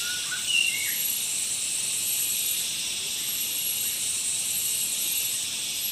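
Steady high-pitched hiss of rural outdoor ambience, with a few short whistled bird notes about half a second to a second in.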